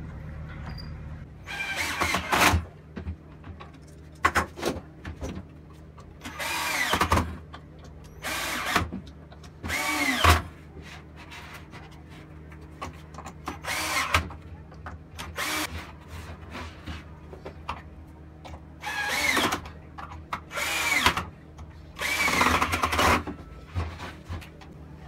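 Cordless drill driving a homemade wooden scroll saw's crank mechanism. It hums steadily and speeds up in about ten short bursts, each with a rising and falling whine.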